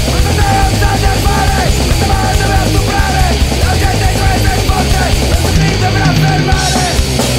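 A live rock band playing a loud, heavy punk-style song on drum kit and guitar.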